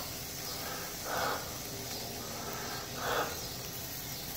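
Sausages sizzling on a grill grate while tongs turn them, with a steady hiss and two brief noisy swishes, about a second in and about three seconds in.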